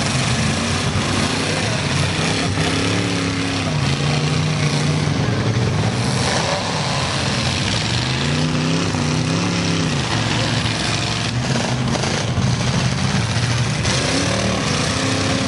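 Engines of several six- and eight-cylinder demolition derby cars running and revving together, their pitch rising and falling, with a few sharp knocks around eleven to twelve seconds in.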